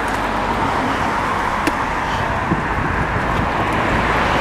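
Road traffic noise, steady and slowly growing louder, with a couple of faint knocks.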